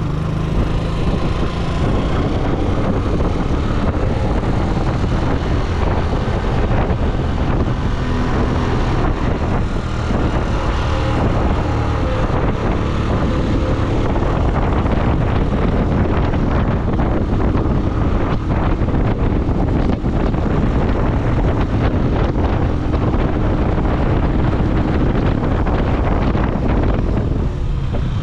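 A vehicle on the move: steady engine and road noise with wind buffeting the microphone.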